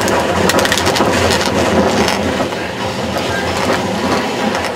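Tram running on street rails: a steady rumble of wheels on track, with a run of rapid clattering clicks from about half a second to two seconds in.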